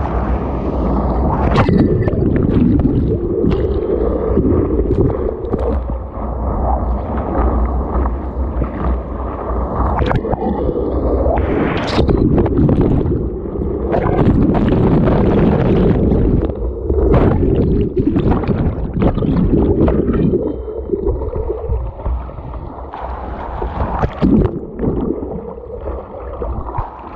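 Whitewater churning and splashing over a kayak's bow, heard close up from a camera mounted on the deck: a dense, muffled rush with frequent splashes as waves wash over the bow. It eases a little in the last few seconds.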